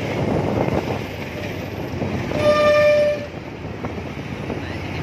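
A vehicle horn sounds once for just under a second, a single steady tone, over a constant rumble of background noise.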